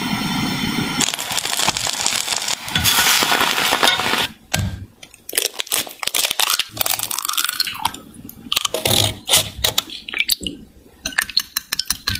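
Butter sizzling as it melts in a frying pan. Then an egg is cracked and its white drips into a glass bowl, and a wire whisk beats egg and milk, clinking against the glass in quick taps.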